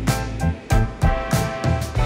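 Background music with a steady beat and sustained bass notes.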